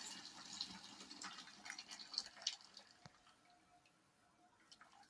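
Faint water sounds, small drips and ticks, dying away about three seconds in.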